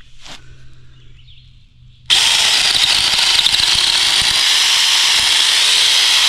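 RLSOO battery-powered mini chainsaw switched on about two seconds in, its electric motor and chain then running loud and steady.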